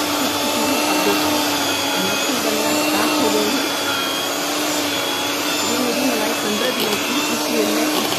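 Electric hand mixer (Skyline) running with a steady hum, its beaters churning milk cream in a steel bowl into butter.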